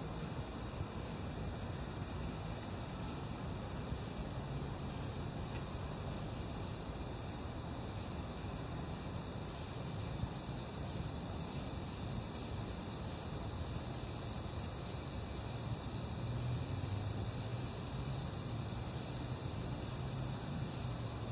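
Steady, high-pitched insect chorus of summer crickets or cicadas, swelling louder about halfway through.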